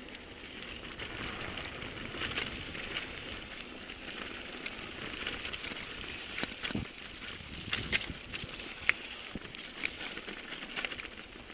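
Mountain bike rolling fast over a rough dirt and stone trail: a steady crunching hiss from the tyres, broken by frequent sharp clicks and knocks as the wheels hit stones and bumps and the bike rattles.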